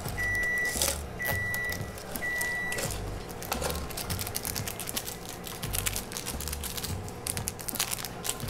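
Three long, even electronic beeps from an appliance beeper, followed by the crinkle and tearing of a cup ramen's lid and seasoning packet, over background music with a steady low beat.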